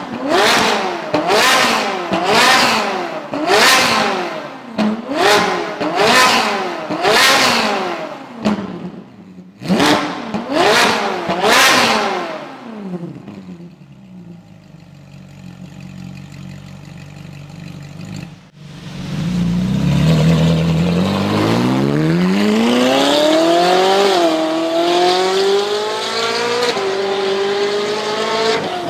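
Ferrari 458's V8 through a Fi Exhaust race-version system with the exhaust valves open, revved about ten times in quick blips, each rising and falling in pitch, then dropping to a steady idle. After a cut, the car is heard accelerating hard on the road, its pitch climbing with one upshift in the last third.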